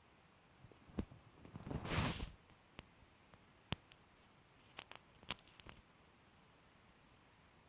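A mobile phone breaking apart in a shredder: a sharp crack about a second in, a louder crunch lasting about half a second, then scattered snaps and a quick cluster of cracks a few seconds later.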